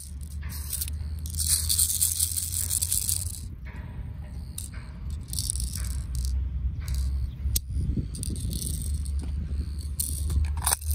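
Airsoft pistol magazine being handled and loaded, its plastic BBs and parts rattling in bouts, with a couple of sharp clicks later on. A steady low rumble runs underneath.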